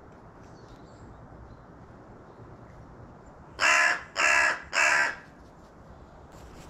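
Carrion crow giving three loud, harsh caws in quick succession, about halfway through.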